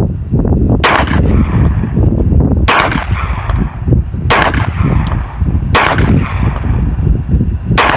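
Glock 17 9 mm pistol fired five times in slow, deliberate shots, each sharp report followed by a short echo, about one every one and a half to two seconds. A loud steady low rumble runs under the shots.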